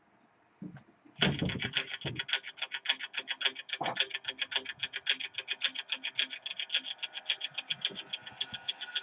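Intro music begins about a second in with a heavy low hit, then runs on as a fast, even ticking beat over a steady high tone.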